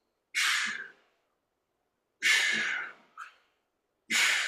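A person breathing hard from the exertion of holding a side plank: three loud, rushing breaths about two seconds apart.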